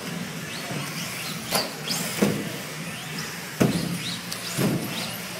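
Electric 1/10-scale 4x4 RC buggies racing, their motors whining up and down in pitch, with four sharp knocks as the cars hit the track, the loudest about two and three and a half seconds in.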